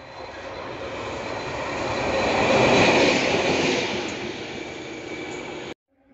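A locomotive-hauled train passing close by a station platform: the noise of the train on the rails builds, peaks about three seconds in and eases off, then cuts off abruptly near the end.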